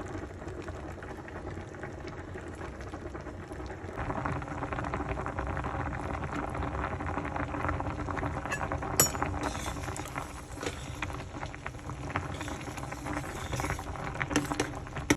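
Food bubbling and crackling in a pan on the stove, getting louder about four seconds in, with a few sharp clicks near the end.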